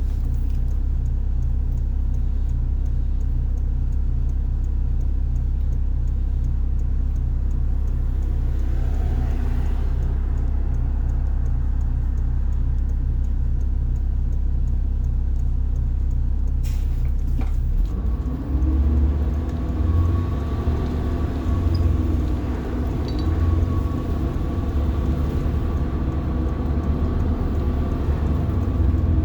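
Rear-mounted diesel engine of a 1990 Blue Bird All American school bus, heard from inside the bus: it idles steadily, then after two short clicks about 17 seconds in it gets louder and its pitch rises and falls as the bus pulls away and accelerates.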